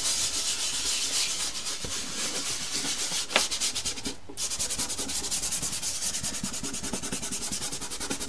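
A hand rubbing soft pastel into textured pastel paper to blend it. It makes quick, rhythmic scrubbing strokes, with a brief pause a little past halfway.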